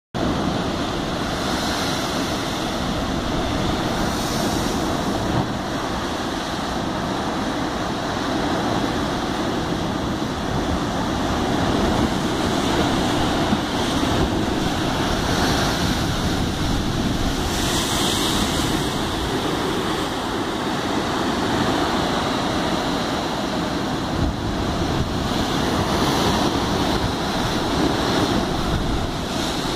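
Heavy ocean surf churning and breaking against rocky sea cliffs, a steady rush that swells louder a few times as waves crash and throw up spray, most strongly a little past halfway. Wind buffets the microphone.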